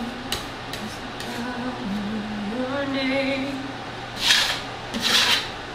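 A woman's voice singing a tune in held, stepping notes over a steady mechanical hum in the room. Near the end, a putty knife scrapes twice across the wall as patching compound is spread over a crack.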